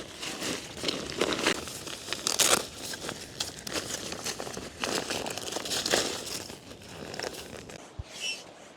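Tent fabric crinkling and rustling in irregular bursts as it is handled and unfolded during tent setup.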